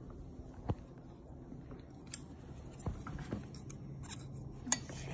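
A few scattered light knocks and scrapes from handling the stainless steel bowl of an electric lunch box, over a low steady hum.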